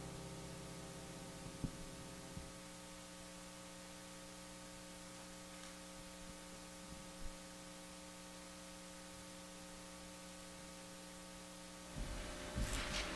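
Steady electrical hum from a sound system in a quiet room, as the last note of the music dies away over the first couple of seconds. A few faint knocks follow, and near the end come louder clicks and rustling.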